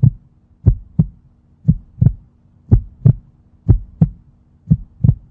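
Heartbeat-style double thump (lub-dub) repeating about once a second over a faint low hum, as the intro of a hip-hop track.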